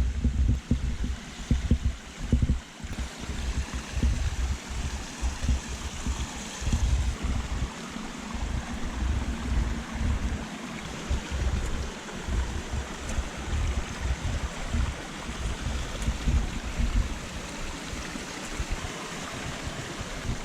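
A stream of running water rushing steadily, with irregular low rumbles underneath.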